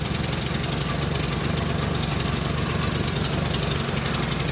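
The engine of a 2011 Craftsman 926 two-stage snowblower running steadily with an even, rapid firing beat, just after catching on a cold start.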